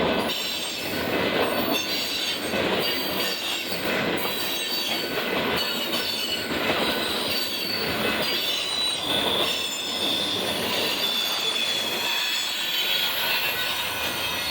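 Freight cars of a mixed freight train rolling past, their wheels squealing with thin high steady tones over a continuous rumble, with a rhythmic clatter of wheels over rail joints.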